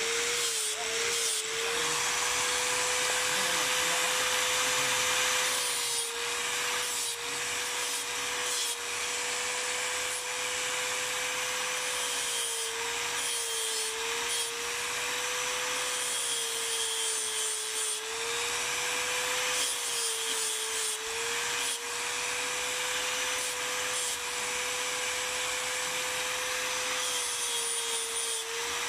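Angle grinder running with an abrasive disc, grinding a water buffalo horn karambit blank: a steady motor whine over a constant gritty hiss, the whine dropping a little in pitch every few seconds as the disc is pressed into the horn.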